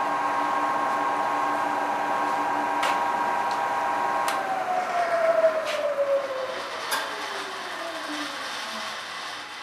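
Vertical milling machine spindle running steadily with its motor whine and mist-coolant hiss. About four seconds in it is switched off, and the whine falls steadily in pitch as the spindle coasts down, with a few sharp clicks.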